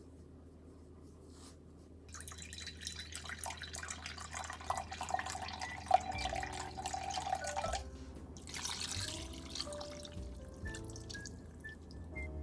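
Black vinegar poured from a bottle into a glass measuring jug, a trickling pour lasting several seconds, then poured briefly from the jug onto raw chicken wings in a cast-iron pot. Soft background music with short melody notes plays underneath.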